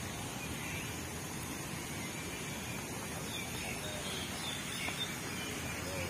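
Steady outdoor background noise with faint, high bird chirps around the middle.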